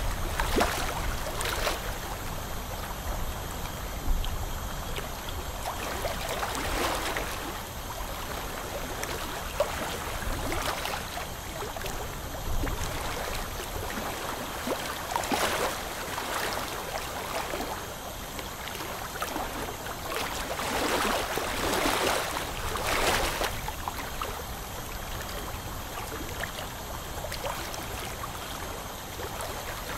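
Dental suction running with a steady hiss, surging into slurping gurgles every few seconds, with a longer run of surges about two-thirds of the way in.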